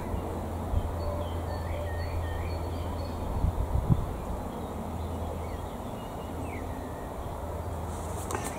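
Wind rumbling on the microphone, with small birds chirping faintly now and then and a few low bumps about three and a half seconds in.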